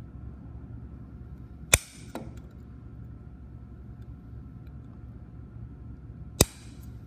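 Diagonal cutters snipping through the thin metal sprues of a cast star part: two sharp snaps about four and a half seconds apart, the first followed by a faint click, over a low steady hum.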